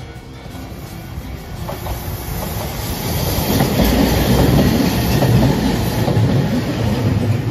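A Hiroden articulated tram, car 3705, approaching and passing close by, its wheels running over the rails. It grows steadily louder and is loudest from about halfway through as the cars go past.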